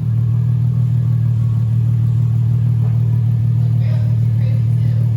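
Nissan 350Z's V6 engine and exhaust holding a steady drone at constant revs, with no rise or fall in pitch.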